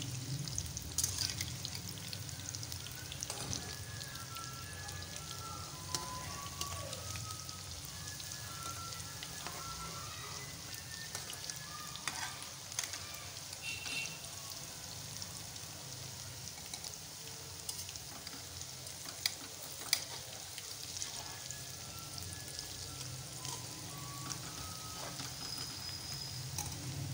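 Spinach and potato pakoras deep-frying in hot oil in an aluminium karahi, with steady sizzling and crackling. A metal spoon stirs and turns them, knocking sharply against the pan twice about two-thirds of the way in.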